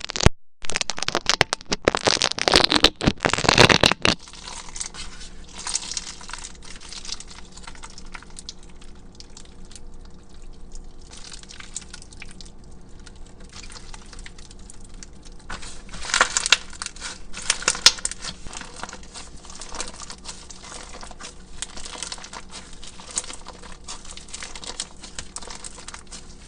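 Crunchy slime packed with small plastic beads being squeezed and pressed by hand, giving dense crackling crunches. The crunching is loudest in the first four seconds and again around sixteen seconds in, with softer crinkling between.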